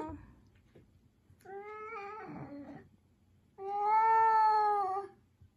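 Domestic cat meowing twice, asking to be let outside; the second meow, about three and a half seconds in, is longer and louder.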